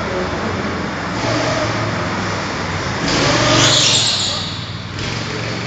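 A go-kart drives past on an indoor track. Its sound swells about three seconds in with a high hiss, peaks, and dies away a second or so later, over a steady hum.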